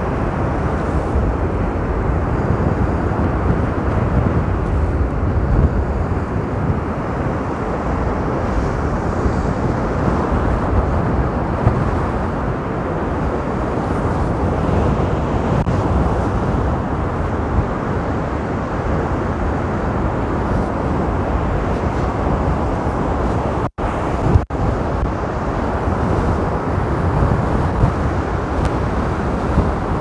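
Stormy sea surf crashing and washing up a sand beach in strong wind, a steady rushing noise with a deep rumble from wind buffeting the microphone. The sound drops out twice for an instant, about three-quarters of the way through.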